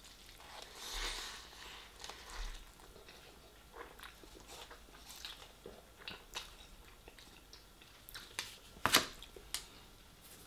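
Close-up chewing of a mouthful of noodles, with small mouth clicks throughout. A louder knock near the end as the foil takeaway tray is set down on the table.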